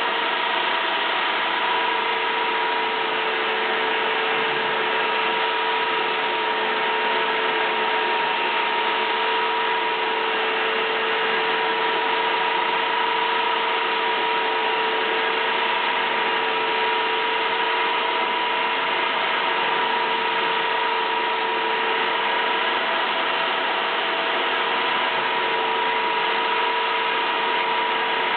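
Interskol LShM-76/900 electric belt sander running steadily at full speed in its bench stand: a continuous motor whine with the belt's rushing noise.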